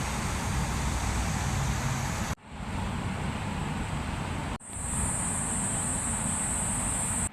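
Steady road-traffic noise with a low rumble, broken by two abrupt dropouts about two and a half and four and a half seconds in. After the second dropout a thin, steady high-pitched whine sits over it.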